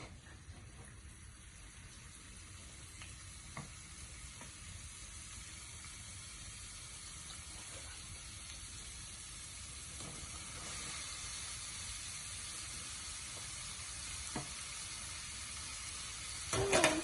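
Food frying in a pan, a steady sizzle that slowly grows louder, with a few faint clicks and a short, louder clatter near the end.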